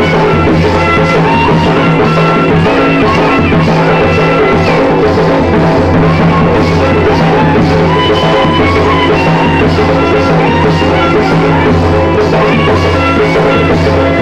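Loud Gondi Dhemsa dance music playing without a break: a short melody repeating over steady drumming.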